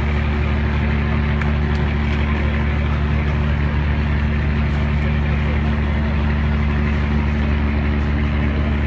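Diesel engine of a moored fishing trawler running at a steady idle: a loud, constant low hum with several steady tones.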